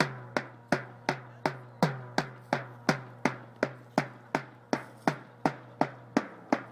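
A drum beaten in a steady, even rhythm, about three strokes a second, each stroke ringing out briefly before the next.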